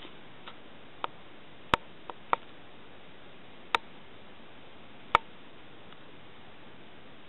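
About six sharp, irregular clicks or taps over a faint steady hiss. Four of them, about 2, 2½, 4 and 5 seconds in, are clearly louder.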